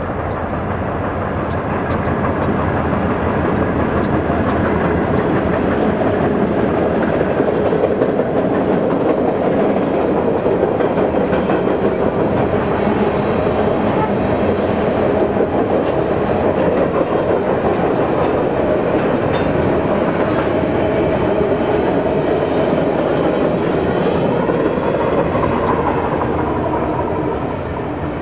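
Freight train cars rolling steadily across a short steel girder bridge, the sound easing off near the end as the train passes.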